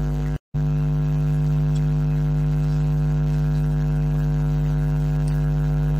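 Steady electrical mains hum, a low buzz with many overtones, that cuts out for a split second about half a second in.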